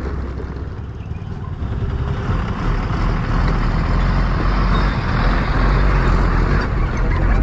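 A Tata diesel bus passing close by on a gravel road, its engine and tyre noise swelling from about two seconds in, over the steady running of the rider's own scooter engine.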